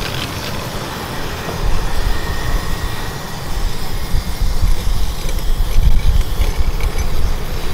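Roadside street noise: a loud, uneven low rumble of passing traffic, growing stronger about a second and a half in.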